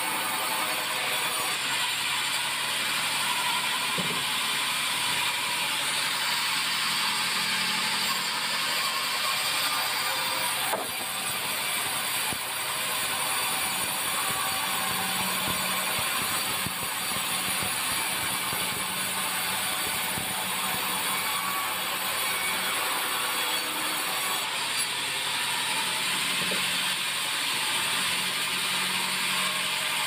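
Band sawmill blade cutting lengthwise through a white meranti log, a steady high-pitched saw noise with a faint low machine hum underneath, running without a break.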